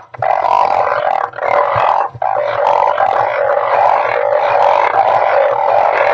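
Dense chorus of balloon frogs (Glyphoglossus molossus) calling over one another in a continuous droning croak, briefly dropping away just after the start and twice more in the first couple of seconds.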